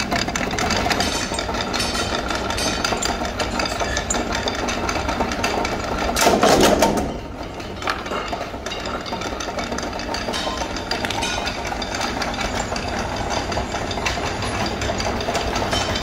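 Workshop machinery running steadily with a fast rattling clatter. A louder rush of noise comes about six seconds in and lasts about a second.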